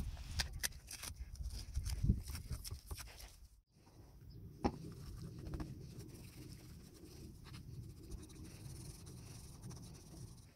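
Small clicks, taps and rustles of gloved hands handling tools and parts on a wooden tabletop. They come thickly for the first few seconds, then break off briefly. After that come a low steady rumble and only occasional light clicks.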